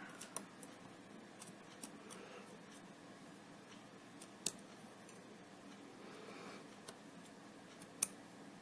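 Scattered light metallic clicks, about seven or eight sharp ticks at uneven intervals, the loudest about four and a half seconds in and near the end, as tweezers and small parts of a disassembled Sargent lock cylinder are handled.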